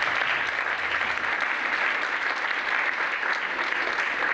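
Lecture-hall audience applauding steadily, the many hand claps blending into one dense wash.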